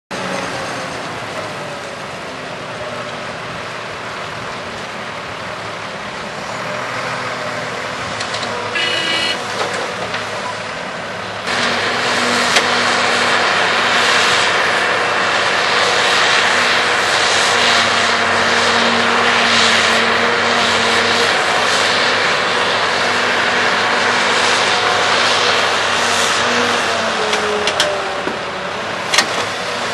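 Diesel engines of heavy earthmoving machinery, an articulated dump truck and a tracked excavator, running steadily under load; the sound steps up and stays louder from about eleven seconds in. A couple of sharp knocks come near the end, as the excavator bucket works over the dump body.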